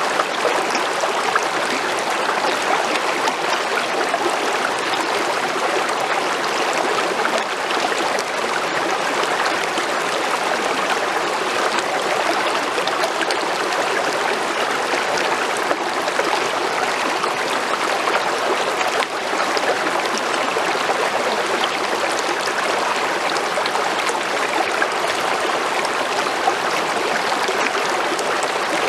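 Water of a small creek flowing and splashing over stones: a steady, even rush.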